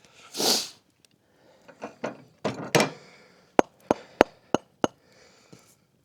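A short breathy puff and some scraping, then five sharp knocks about a third of a second apart on a drilled log, as snow is knocked out of its feeder holes.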